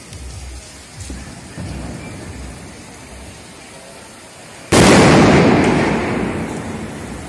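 Diwali firecrackers: a couple of small distant pops, then one sudden loud firecracker bang about two-thirds of the way in, its boom dying away over about two seconds.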